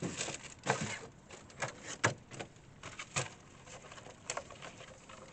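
Thin plastic root-trainer seed trays being picked up and handled, giving a series of irregular clicks and crackles.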